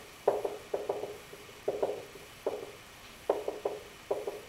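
Marker writing on a whiteboard: short, scratchy strokes in irregular clusters, one per pen stroke, as letters are written.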